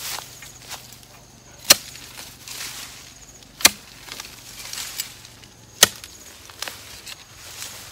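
Three sharp chops, about two seconds apart, of a long-handled blade driven into the roots and soil at the base of a galangal clump, with lighter knocks between.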